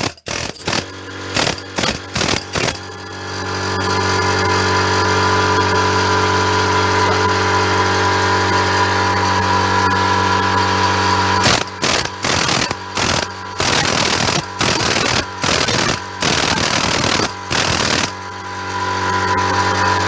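SGS 24-litre 2.5 hp air compressor running with a steady hum, refilling its tank while air is drawn off. Over it a pneumatic hammer runs, continuously for several seconds and in short stop-start bursts near the start and again in the second half.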